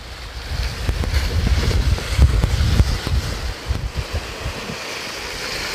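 Wind buffeting the microphone in uneven gusts over the wash of waves breaking against shoreline rocks.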